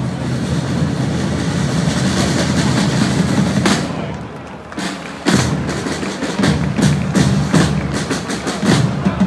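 Parade drums beating a rolling rhythm, with a few sharp strikes a little after the middle and a quick run of strikes near the end.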